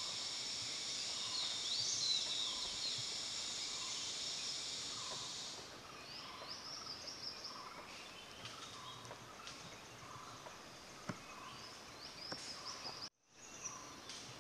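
Forest ambience: a steady high buzzing drone that stops about five and a half seconds in, with birds calling throughout in short chirps and repeated notes. The sound drops out briefly near the end.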